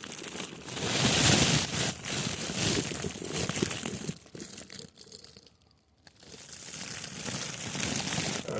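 Crinkling, rustling handling noise with scattered small clicks as material is pulled and handled. It stops for a moment about five and a half seconds in, then starts again.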